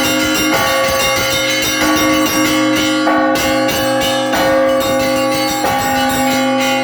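Russian Orthodox church bells ringing together in a festive peal: small bells struck rapidly, many strikes a second, over the steady, lingering tones of larger bells.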